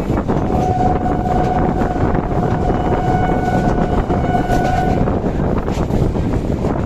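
Train horn sounding one long steady note for about four and a half seconds, over the loud rumble and wind noise of a moving train.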